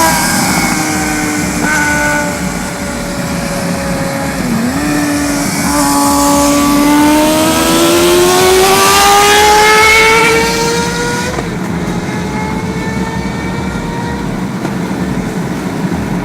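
Suzuki GSX-R600 inline-four motorcycle engine at high revs at motorway speed. There is a brief dip in pitch about four and a half seconds in, then a long rising rev. About eleven seconds in the throttle closes and the engine note sinks slowly. A steady rush of wind noise runs underneath throughout.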